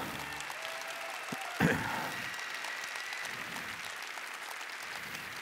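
Audience applauding steadily, with one sharp thump about one and a half seconds in.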